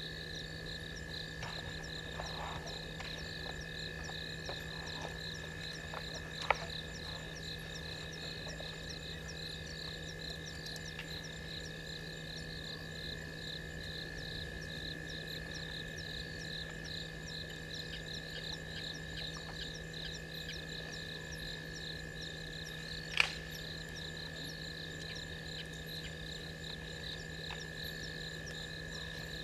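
Night chorus of frogs and insects: a rapid, regularly pulsing high trill over a steady high tone that carries on throughout. Two sharp clicks stand out, about six seconds in and again near twenty-three seconds in.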